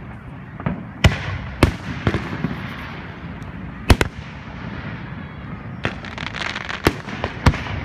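Aerial fireworks shells bursting: a run of sharp booms, the loudest and doubled about four seconds in, with crackling and rolling echoes between them.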